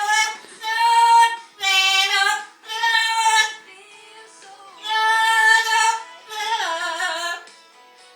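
Amazon parrot singing along, loud drawn-out notes of about a second each, six in all with a pause midway, over quieter background music.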